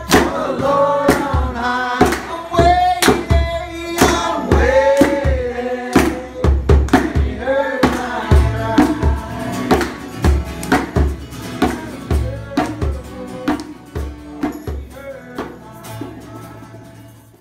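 A small group singing a worship song together with a strummed acoustic guitar, with steady rhythmic clapping about twice a second; the music fades away near the end.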